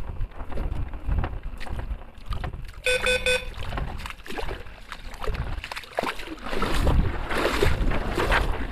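Water splashing in waves as someone wades barefoot through shallow water, loudest from about six seconds in, over wind rumbling on the microphone and scattered handling knocks. A short electronic beep sounds once, about three seconds in.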